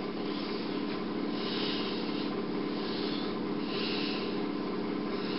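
Steady room hum with two soft swishes about a second and a half and four seconds in, as cloth hand puppets are handled and swapped.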